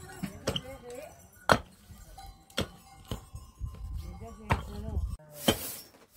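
A series of sharp knocks, roughly one a second, like blows of a tool. A hissing noise starts near the end.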